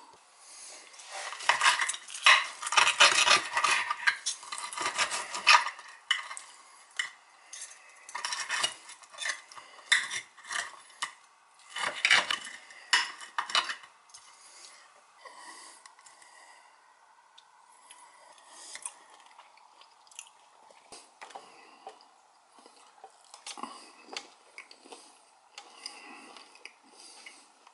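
Steel knife and fork scraping and clinking on a glazed ceramic plate while cutting a pork chop. Dense and loudest in the first half, then fewer, fainter clicks.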